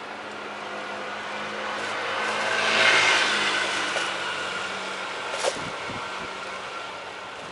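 A car passing close by, its tyre and engine noise rising to a peak about three seconds in and fading away, with a short sharp click a little later.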